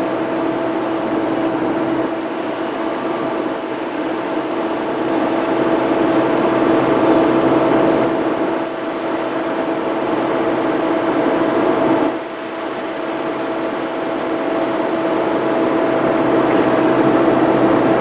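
Mini excavator's diesel engine running steadily under load with a constant droning tone as the bucket digs into soil, dipping briefly twice.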